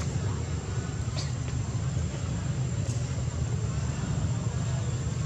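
A steady low rumble with a faint thin high whine over it, and two brief faint high chirps, about one second and three seconds in.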